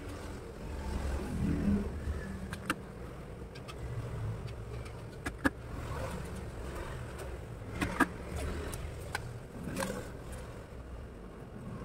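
Several sharp clicks and knocks from a manual cast-metal ID card die cutter being handled as a printed card sheet is lined up in it, over a steady low rumble; the loudest clicks come about halfway and about two-thirds in.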